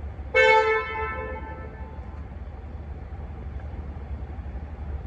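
Car horn sounded once in a short honk, starting about half a second in and trailing off over the next second or so, over the low steady rumble of the car idling.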